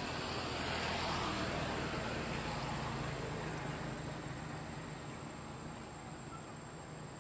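A motor vehicle's engine rumble that swells about a second in and then slowly fades, over a steady high-pitched insect buzz.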